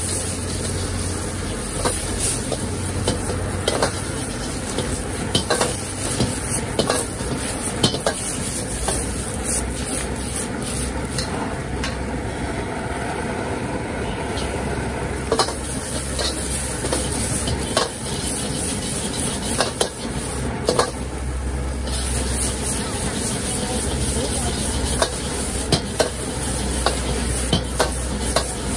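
Noodles sizzling as they are stir-fried in a wok, with frequent irregular clinks and scrapes of a metal ladle against the wok. The gas burner under the wok runs with a steady low rush.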